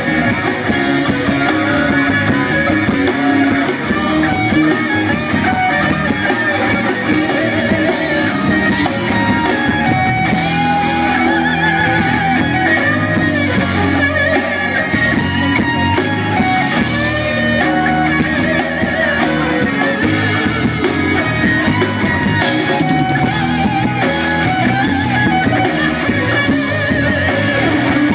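Live rock band playing an instrumental passage: electric guitar lines over bass and drum kit, loud and steady.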